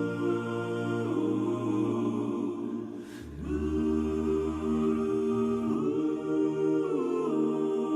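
Background music of long held, choir-like chords that change every second or two, with a brief dip and soft swish about three seconds in.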